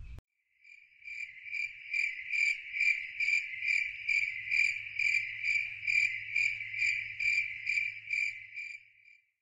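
Cricket chirping in a steady pulsing trill, about two to three pulses a second, fading in after a moment of silence and fading out near the end, with a faint low hum under the second half.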